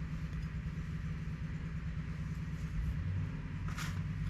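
Steady low mechanical hum, like a motor or fan running in the background, with a single faint tap about four seconds in.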